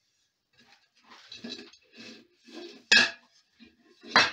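Steel piston with brass guides being slid by hand out of a Stirling engine cylinder, scraping in the bore, with two sharp metal clanks: a loud one about three seconds in and another near the end.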